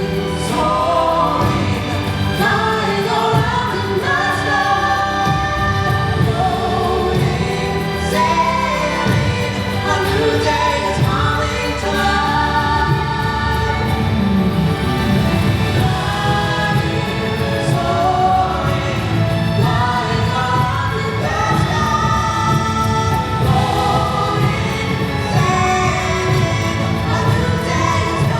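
Show music played loud, with a group of voices singing over a pulsing low beat.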